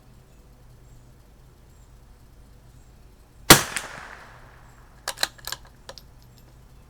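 A single shot from a CZ 457 bolt-action .22 LR rifle, with a short fading tail, followed about a second and a half later by a quick run of sharp metallic clicks as the bolt is worked to eject the case and chamber the next round.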